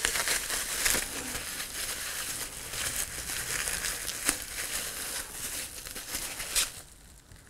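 Bubble wrap crinkling and rustling as hands pull it off a tin of airgun pellets, with a few sharper clicks among the crackle. It dies away shortly before the end.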